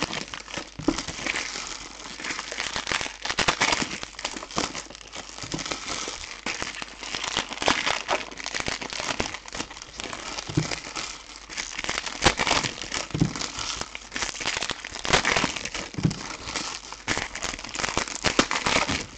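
Foil wrappers of trading card packs crinkling and crackling as they are handled and torn open, in irregular bursts.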